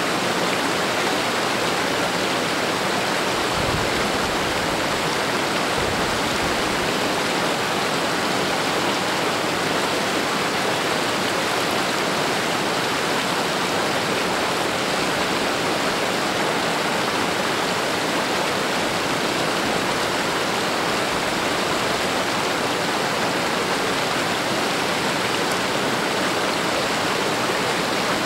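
A shallow, rocky stream flowing steadily over stones, a constant even hiss of running water.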